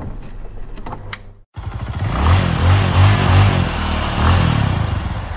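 Motorcycle engine revving hard, loud and rough. It breaks off for an instant about a second and a half in, then comes back at full loudness.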